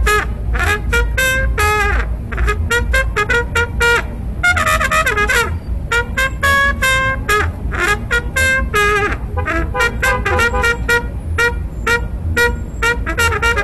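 Busker's trumpet played live: a quick run of short, detached notes with a few longer held ones, over a steady low rumble.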